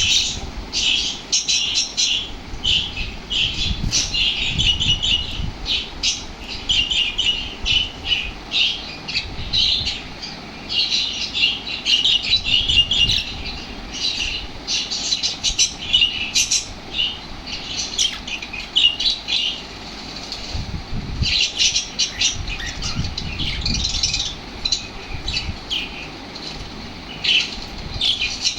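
Small pet parrots (budgies and lovebirds) chattering in a continuous stream of quick, high-pitched chirps and squawks, with a low rumble underneath at times.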